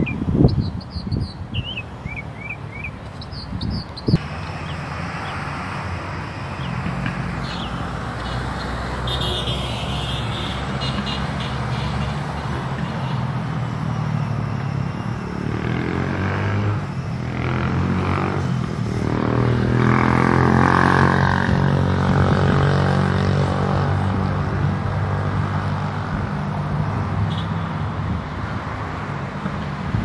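Road traffic: a steady rumble of passing vehicles, with one engine growing louder and passing a little past the middle. A few short, high bird chirps sound in the first few seconds.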